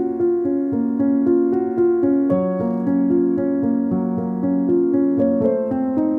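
Background music played on piano or electric keyboard, a gentle run of held notes that change in steps.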